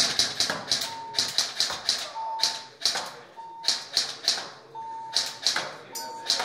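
Airsoft rifle fired in rapid single shots, about three a second in uneven runs, each a sharp snap. Short electronic beeps sound five times between the shots, from the electronic target system.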